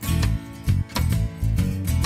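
Background music led by guitar, with a steady rhythmic beat.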